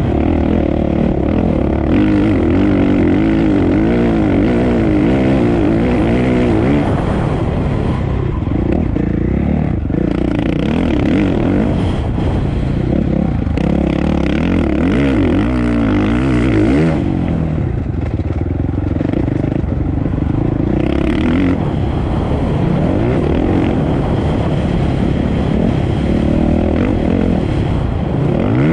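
Racing motorcycle engines running hard without a break, their pitch rising and falling again and again as they rev through the gears.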